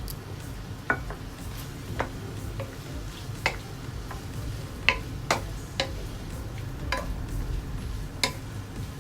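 A cooking utensil clinking and scraping against a pan while stir-frying chicken, liver and vegetables: about ten sharp, irregular clinks over a steady low background noise.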